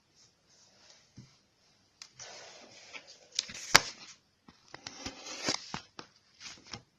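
Homemade slime of glue, shaving foam and detergent activator being mixed and worked, making wet squishy noises with sharp sticky clicks and pops, starting about two seconds in.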